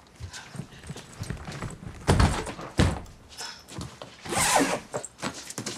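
Clothes and luggage being handled while packing: rustling fabric, two dull thumps about two and three seconds in, and a longer swish of cloth about four and a half seconds in.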